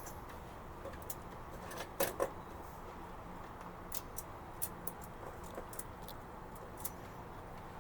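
Plastic printer parts being handled during disassembly of a laser printer's transfer belt unit: two sharp knocks about two seconds in, then light scattered clicks and taps.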